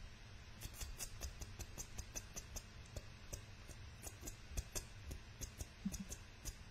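Rapid, faint clicking at a computer, about four clicks a second in an uneven rhythm, starting about half a second in, over a low steady hum.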